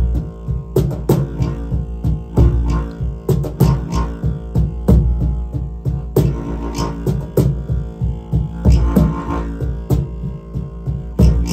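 Live music on a long bamboo wind instrument: a deep, steady drone with sharp rhythmic pulses about twice a second.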